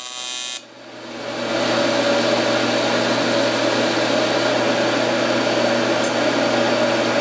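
Brief buzz of an AC TIG welding arc, cut off within the first second. Then a loud, steady rushing noise with a low hum swells in over about a second and holds.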